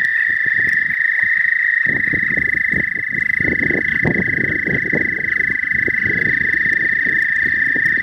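A chorus of toads trilling, one steady high-pitched trill that runs on without a break. Irregular low rustling close by joins in from about two seconds in.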